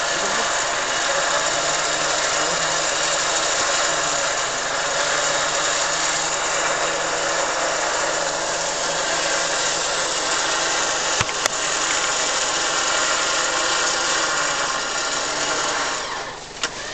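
Off-road 4x4's engine held at steady high revs, easing off near the end.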